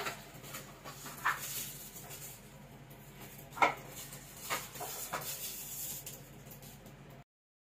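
Small cardboard gadget boxes and their contents being handled and opened: a few short sharp taps and rustles, the loudest about three and a half seconds in, over a low steady hum. The sound cuts off suddenly near the end.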